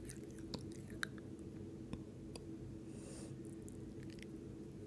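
Chopped tomatoes cooking in oil in a lidded kadai on a gas stove: faint, scattered pops and crackles under the lid over a steady low hum.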